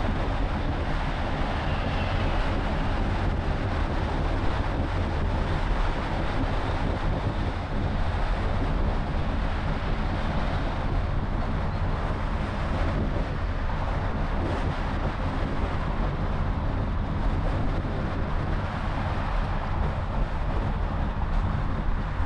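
Honda CR-V driving along a city road: a steady rumble of road, tyre and engine noise with passing traffic and no sudden events.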